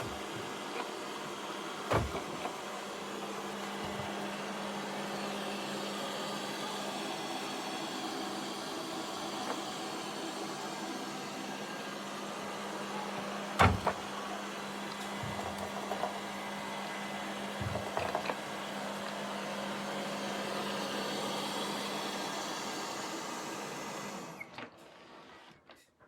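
Robot vacuum running with a steady hum, with a couple of sharp knocks, one about two seconds in and one about halfway. The hum cuts out shortly before the end.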